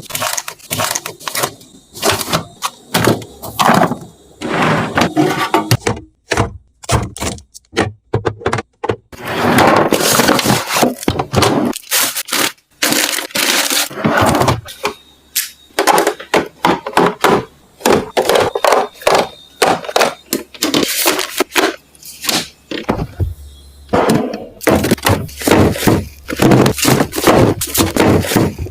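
Food packaging and storage containers being handled and set down: a dense run of knocks, clacks and crinkles, with a couple of short pauses.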